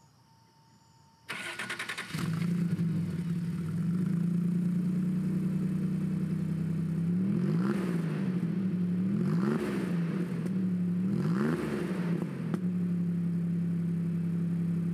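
1988 Toyota pickup truck's engine cranked by the starter a little over a second in, catching and settling into a steady idle. It is then revved three times, about two seconds apart, each a quick rise and fall in pitch, before dropping back to idle.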